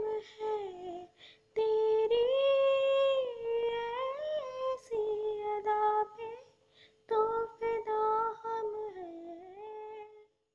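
A young woman's unaccompanied voice humming a wordless melody in several long phrases of held and sliding notes, with no music behind it.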